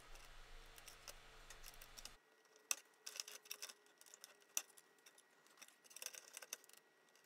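Near silence: sparse faint clicks and small taps of a soldering iron and wires being worked while desoldering LED wiring inside the electronics kit's metal chassis. A faint low hum stops about two seconds in.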